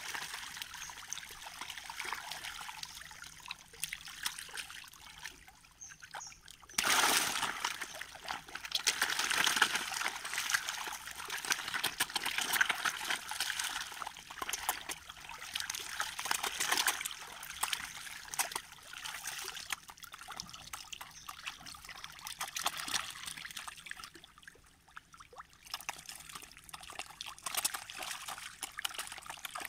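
A crowd of catfish thrashing and splashing at the water's surface in a feeding frenzy: continuous wet splashing and sloshing that surges suddenly about seven seconds in and eases briefly near the end.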